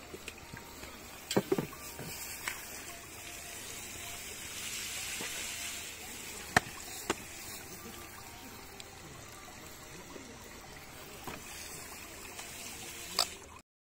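Garden hose spray nozzle spraying water onto a pair of skis in a metal rack, a steady hiss and splash that grows louder about halfway through. A few sharp knocks sound over it. The sound cuts off suddenly near the end.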